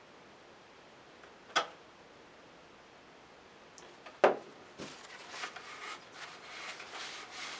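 A light click, then a sharper knock about four seconds in as the cardboard rocket body is set down on a cutting mat, followed by the crinkly rustle of a paper towel rubbed over the rocket to wipe off excess glue.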